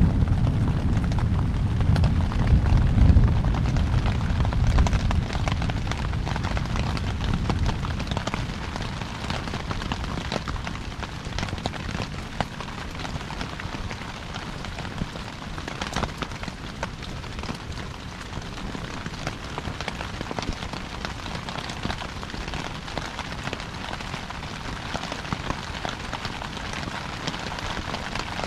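Thunder rumbling deep and loud, dying away over the first several seconds. Under it and after it, heavy rain falls steadily on the tent, with scattered ticks of single drops.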